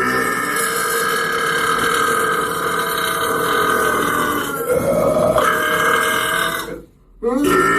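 A man burping in one long, drawn-out burp lasting about seven seconds, its pitch shifting and bending upward about five seconds in. After a brief break, another burp begins near the end.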